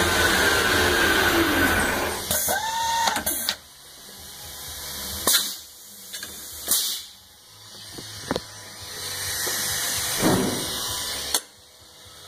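Metal lathe spindle running down after drilling, its whine falling in pitch as it coasts to a stop over the first three seconds. Then a handful of sharp metallic knocks and clicks as the stopped chuck is handled and the drilled bushing is taken out.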